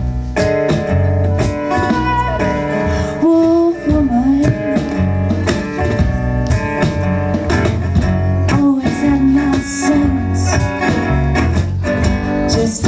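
Live folk band playing an instrumental passage: strummed acoustic guitar and electric bass under a bowed violin melody with sliding notes, with percussion strikes keeping the beat.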